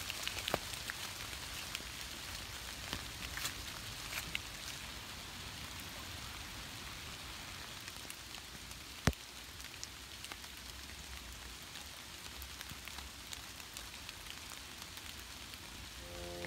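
Light rain falling on leaves and brush: a steady hiss with scattered, irregular drop ticks over a low rumble. One sharp tap stands out about nine seconds in.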